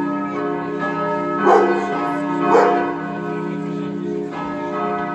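A peal of 1921 Bochumer Verein cast-steel church bells swinging and ringing, a long humming tone with strikes at uneven intervals, the two loudest about a second apart in the middle. Only the d¹ and f¹ bells are sounding, since the h° may not ring yet, and the f¹ keeps skipping strokes after the new motor installation.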